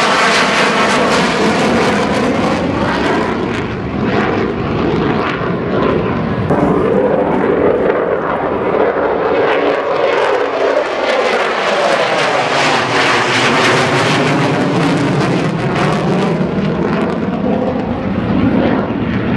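F-16 fighter jets climbing out after takeoff and passing overhead one after another: a loud, continuous jet roar whose hiss swells and sweeps in pitch as each aircraft goes by.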